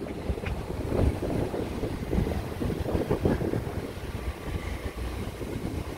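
New York City Subway train rumbling and clacking on the elevated steel track, easing off gradually, with wind buffeting the microphone.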